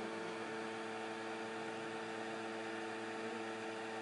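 A steady electrical hum made of several unchanging low tones over a constant hiss.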